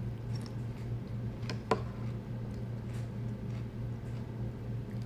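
A metal spoon clicking against a ceramic cereal bowl a few times while scooping soggy cereal, with one sharper clink just under two seconds in, over a steady low hum.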